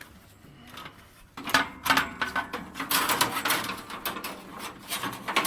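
Irregular metallic clanking, clicking and rattling as the bandsaw mill's blade covers and band blade are handled during a blade change. It is faint for about the first second and a half, then busy with many sharp knocks.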